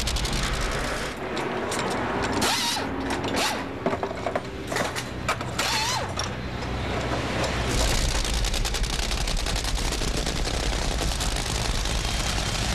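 Nitro-burning Top Fuel dragster engine running, a dense crackling racket of rapid pops, with a heavier low rumble coming in about eight seconds in.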